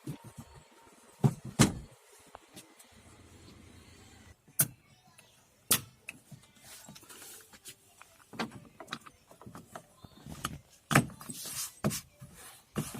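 Scattered sharp plastic clicks and knocks, a loud pair about a second and a half in and more spread through the rest, as a Maruti Suzuki Alto's door trim panel is refitted onto the door.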